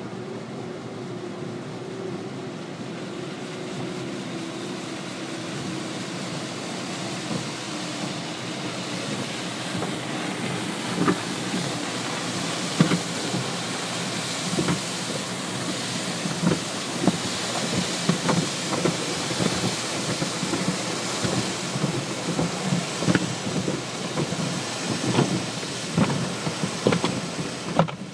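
Automatic car wash heard from inside the car: a steady rain-like hiss of water jets and spray on the body and windshield. From about a third of the way in, the soft-cloth brushes add irregular thumps and slaps against the car, coming more often toward the end.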